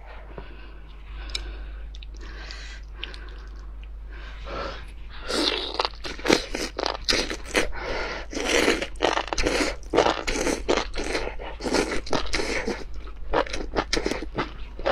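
Close-miked eating of spicy enoki mushrooms: strands drawn into the mouth and chewed, with wet, crunchy, irregular mouth sounds. They start about five seconds in, after a few quieter seconds.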